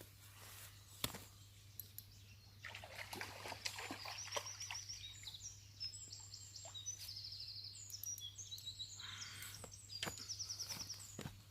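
Songbirds singing: a busy run of high chirps, gliding whistles and fast trills, with a few sharp clicks and a steady low hum underneath.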